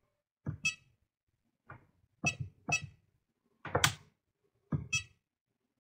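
Handheld oscilloscope buttons being pressed: about eight short clicks, some in quick pairs.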